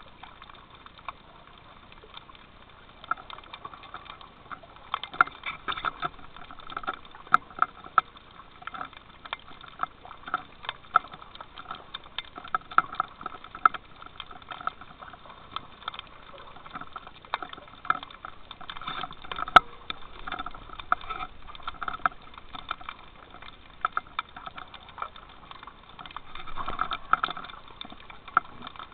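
Underwater ambience picked up through a camera's waterproof housing: irregular clicks and crackles over a faint hiss, with one sharper click about two-thirds of the way through.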